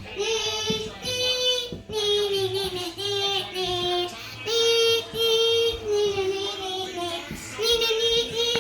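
A child singing a tune in held notes that step up and down in pitch, each note lasting about half a second to a second.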